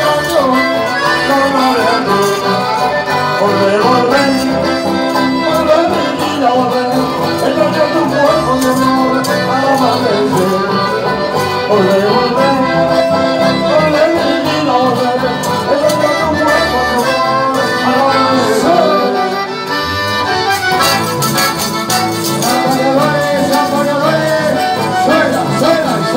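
A live folk band playing Latin American dance music, with guitar, at a steady, lively pace.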